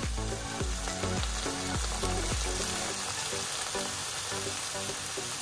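Water poured into a hot frying pan of fried onion, carrot and tomato paste, sizzling steadily as it hits the oil.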